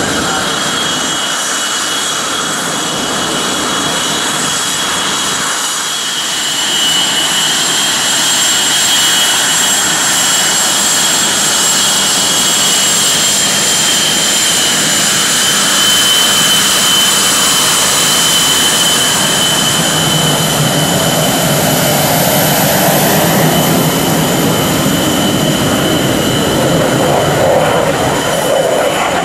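Twin jet engines of F/A-18 Hornet fighters taxiing: a steady high-pitched turbine whine over a broad rush of exhaust. It grows louder about seven seconds in.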